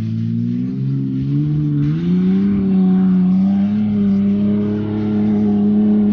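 Honda Ridgeline's 3.5-litre V6 running at high revs under load on a sand hill climb, its pitch stepping up twice in the first two seconds and then held steady and loud.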